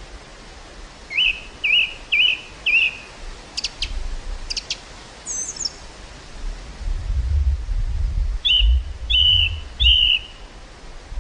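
Small birds calling in a row of short chirps: four early on, then a few sharp high notes, then three more near the end. Over this is a steady outdoor hiss, and from about halfway through, a low rumble of wind buffeting the microphone.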